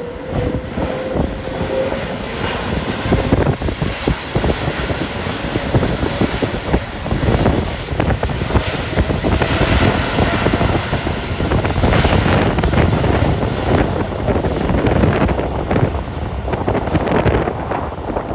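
Boeing 787-9 Dreamliner's jet engines at takeoff power: a loud, steady rush of engine noise with a faint whine that rises slightly in the first couple of seconds. Wind buffets the microphone throughout.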